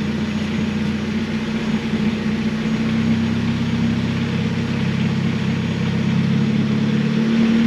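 Offroad race car's engine idling steadily, with a slight change in its low note about three seconds in.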